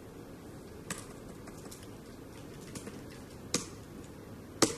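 A few scattered keystrokes from typing text on a tablet: sharp key clicks about a second in and again about three and a half seconds in, with the loudest just before the end, over faint room hum.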